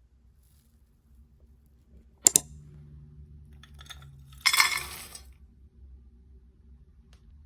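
Kitchenware being handled: a sharp double clink of glass or dishes about two seconds in, then a short scraping rustle a couple of seconds later.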